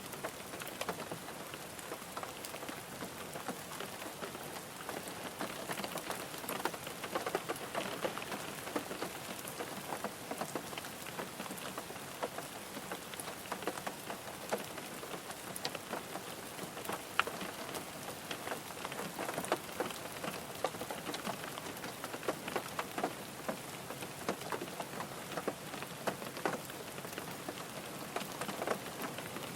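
Steady rain drumming on a car's roof and windows, heard from inside the cabin: a dense patter of many individual drop impacts.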